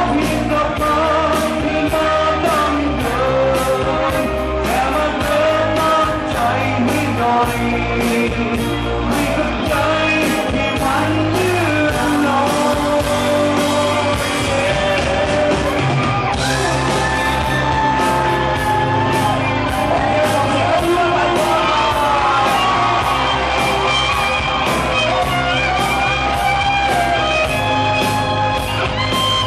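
Live rock band playing a song: singing over electric guitar, bass and drums with a steady beat.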